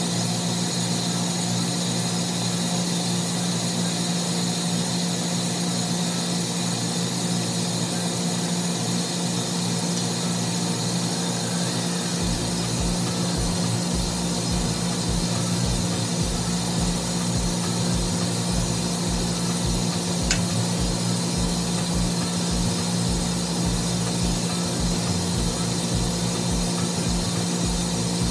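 Steady drone of running machinery in a building's mechanical room, with a strong low hum. An irregular low rumble joins about twelve seconds in, and there is a single sharp click about twenty seconds in.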